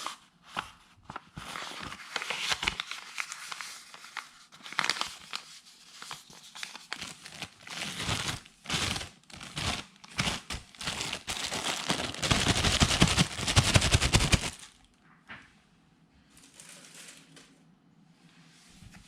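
Packaging crinkling and rustling as it is handled, in a long run of crackly scrunching that is loudest just before it stops about fourteen seconds in; only faint handling noises follow.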